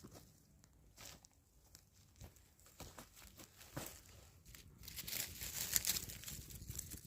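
A newly lit fatwood kindling fire crackling with scattered sharp pops, growing denser, louder and hissier about five seconds in as the flames take hold.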